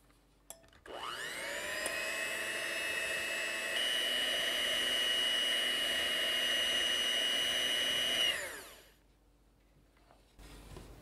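Electric hand mixer whipping cream in a glass bowl. The motor spins up about a second in, runs as a steady whine that steps higher in pitch partway through, and winds down near the end.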